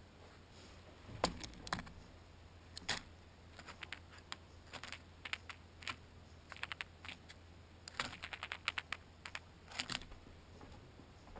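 Jays pecking at peanuts in the shell on a metal feeder tray: irregular sharp clicks and taps of bill and feet on shells and tray, some single and some in quick runs, the busiest run about eight seconds in.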